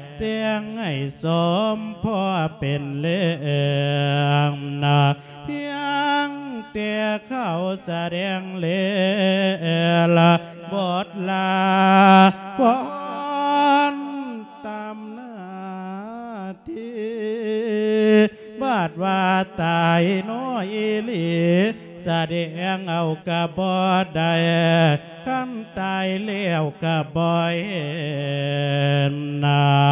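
A Thai Buddhist monk's solo voice singing a lae riak winyan, a spirit-calling melodic sermon, in long wavering notes that bend and glide between pitches.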